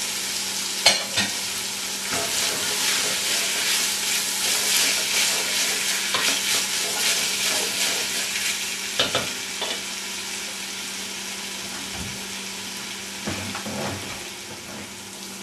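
Diced celery, potatoes and onions sizzling in olive oil in a stainless steel pot while a wooden spoon stirs them, with a few sharp clacks of the spoon against the pot. The sizzle eases off once the stirring stops near the end.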